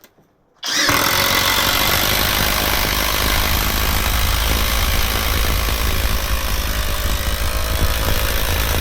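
Flex compact 1/2-inch impact wrench on speed 3 hammering continuously as it drives a 3/8-inch fastener into stacked plywood, starting just under a second in.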